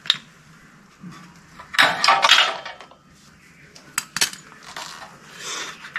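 Metal hand tools and sockets clinking and rattling against metal: a sharp clink at the start, a longer rattle about two seconds in, and two more sharp clinks about four seconds in.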